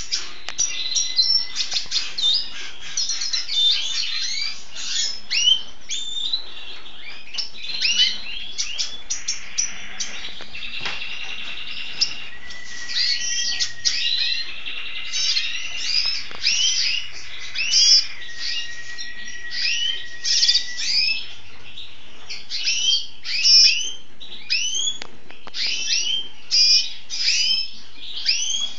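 Caged male red siskin singing a long twittering song of quick chirps and rising and falling notes, with long held whistled notes partway through.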